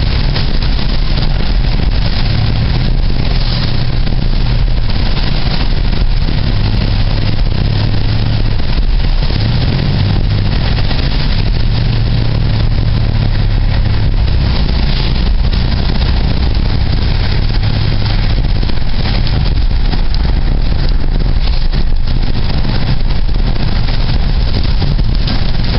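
Car running on the road: a steady loud rush of road and wind noise over a low engine hum that shifts in pitch now and then.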